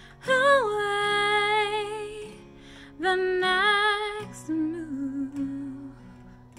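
Woman singing a slow song over acoustic guitar, holding two long notes with vibrato, then a lower, quieter phrase.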